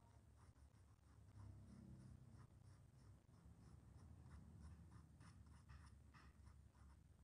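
Faint scratching of a graphite drawing pencil on sketchbook paper, in quick repeated short strokes that come a little thicker in the second half.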